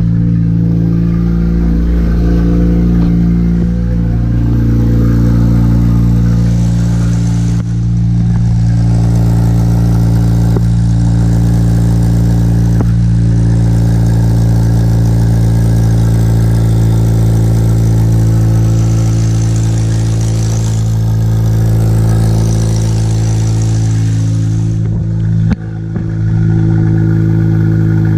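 Turbocharged Acura RSX's K20 four-cylinder engine idling steadily.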